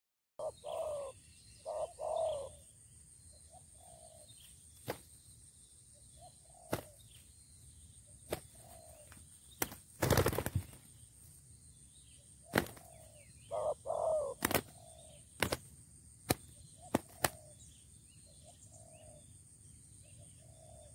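Spotted doves cooing in short low phrases, twice near the start and again about fourteen seconds in, with softer coos between. About ten seconds in, wings flap loudly as the doves scuffle, and sharp clicks sound here and there.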